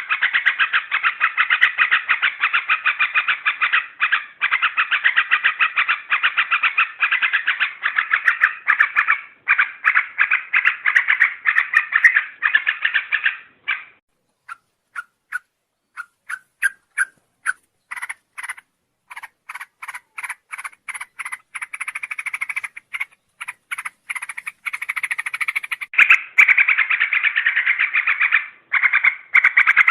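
Yellow-vented bulbul (trucuk) calls in a lure recording: fast, dense chattering for the first half, thinning to separate short notes about halfway through, then dense chattering again near the end.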